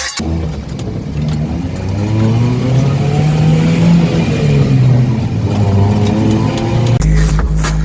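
Car engine revving, its pitch climbing slowly for about four seconds and then falling back. Music starts up again near the end.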